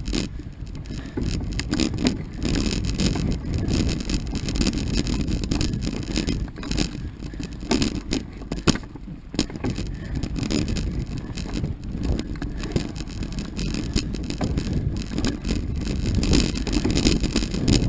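Mountain bike riding down a rough dirt singletrack: knobby tyres rumbling over the ground, with frequent sharp clatters and knocks as the bike jolts over bumps and roots.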